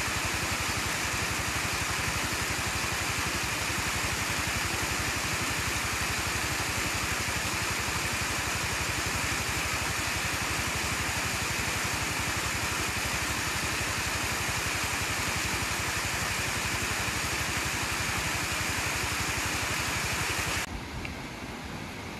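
Steady rush of water spilling over the notch of a small concrete sabo check dam and splashing down. About 21 s in it cuts abruptly to a quieter, duller rush of water from a larger stepped check dam heard from further off.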